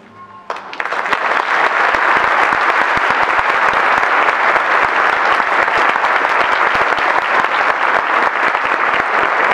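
Audience applause breaking out about half a second in as the last of the orchestra's final chord fades, then dense, steady clapping.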